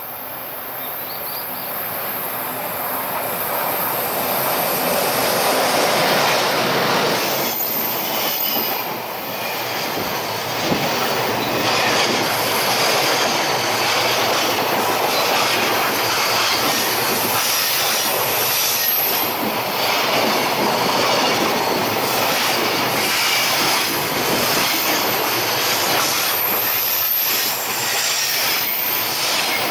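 Freight train hauled by an EH500 electric locomotive passing close by, building up over the first few seconds and then running on steadily as wagon after wagon rolls past, with the clatter of wheels over rail joints and a faint high wheel squeal now and then.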